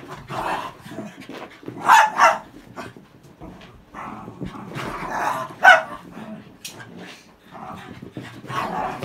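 Cairn terriers fighting, growling throughout with short barks and yaps breaking in; the loudest outbursts come about two seconds in and just before six seconds.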